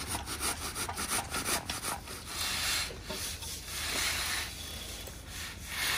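A long-handled metal concrete groover scraping through fresh, wet concrete to cut control joints. It starts with a quick series of short rasping scrapes, then a few longer sweeping strokes.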